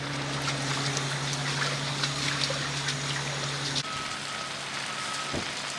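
Rain and running floodwater: a steady wash of water noise full of small drips and splashes. A steady low hum sits under it and stops abruptly about two-thirds of the way through.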